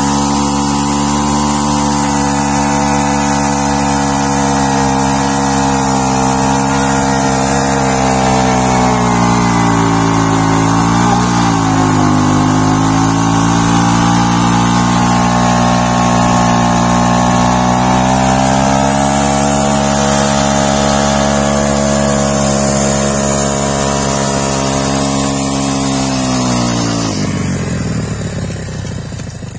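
Motorcycle engine held at high, steady revs during a rear-tyre burnout, with the hiss of the spinning tyre on the ground. The revs dip briefly about ten seconds in and fall away near the end.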